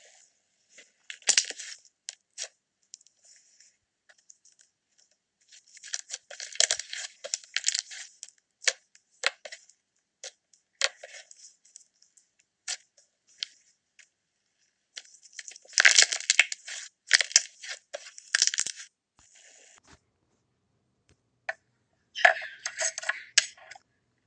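Butter slime being pressed and spread by fingers: bursts of sticky crackling and squishing, in several clusters with short quiet gaps between.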